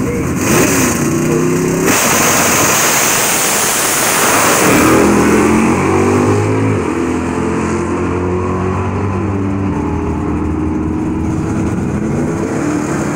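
Two vintage muscle-car drag racers launching at full throttle and accelerating down the strip. The engine pitch climbs and drops back several times as they shift through the gears.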